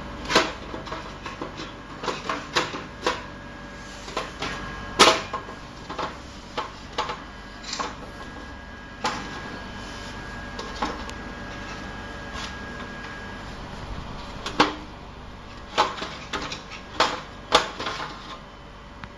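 Irregular clicks, taps and knocks of hardware being handled while a hard drive is fitted into a DVR, about two dozen sharp clicks, loudest about five seconds in and again near the end.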